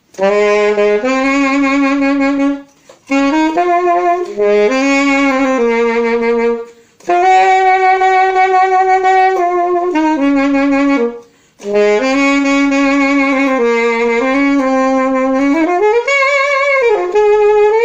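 Alto saxophone played unaccompanied in four short jazzy phrases with breaths between, vibrato added to the held notes, mostly at the ends of phrases. Near the end one note bends up and back down.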